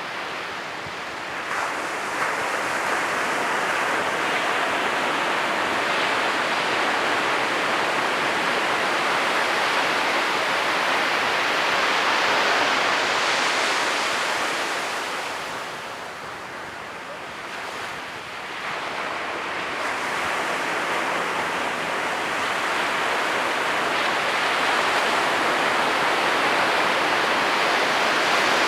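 Ocean waves breaking and washing up on the shore in a continuous rush of surf. It eases briefly a little past halfway, then builds again as the next wave breaks.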